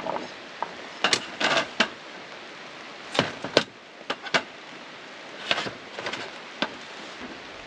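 Knife chopping potato and kumara on a chopping board: irregular sharp knocks, some in quick pairs.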